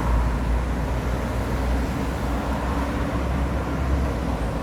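Steady street traffic noise: a continuous low rumble of passing road vehicles.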